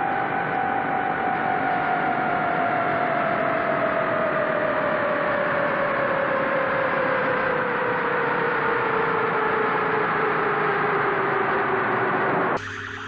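Rocket launch sound effect: a steady rushing noise with a tone that glides slowly downward, cutting off suddenly about twelve and a half seconds in.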